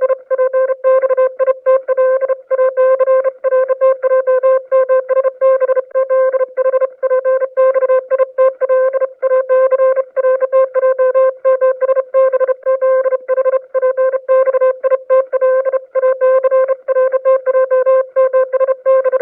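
Cartoon sound effect: a horn-like note held at one pitch and chopped into rapid, slightly uneven staccato pulses, about three to four a second.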